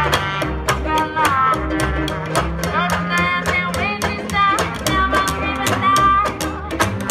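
Acoustic jazz street band playing: trumpet and saxophone carry the melody over upright bass and a steady strummed banjo and guitar rhythm.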